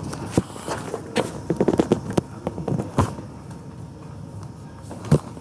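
Irregular sharp clicks and knocks over a low room background, with a quick run of them about one and a half to two seconds in and a single loud one near the end.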